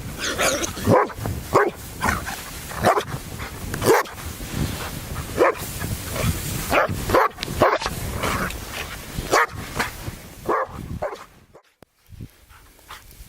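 A dog barking repeatedly, about a dozen sharp barks roughly once a second, falling quiet near the end.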